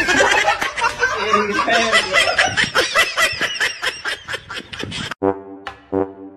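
A person laughing hard in a rapid run of cackling bursts. About five seconds in, this cuts off and a few short brass-like musical notes begin.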